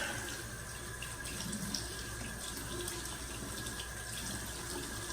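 Water tap running steadily into a bathroom sink while the face is wetted with it before shaving.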